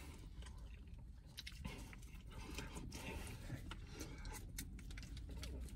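Faint scattered clicks and scrapes from handling a crumbling meat pie, over a low steady hum.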